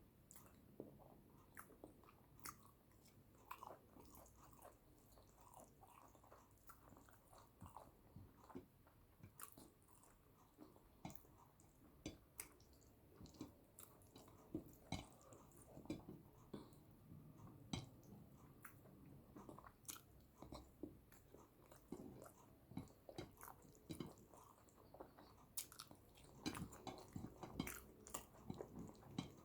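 Quiet, close-miked chewing and wet mouth sounds of someone eating yam with eggplant sauce: irregular soft smacks and clicks of the mouth working the food.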